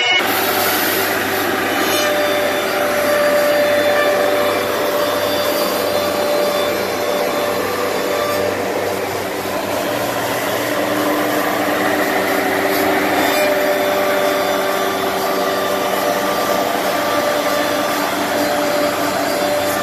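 CNC router spindle running and cutting grooves in a foam panel, with three saw-blade cutters mounted at once, while its dust extraction draws air: a steady rushing machine noise with faint steady whines.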